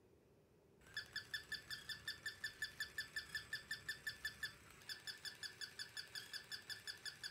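Battery-powered walking plush toy dog switched on, its sound chip giving a fast, even run of short high-pitched electronic yips, about six a second, starting about a second in, with a brief break partway through.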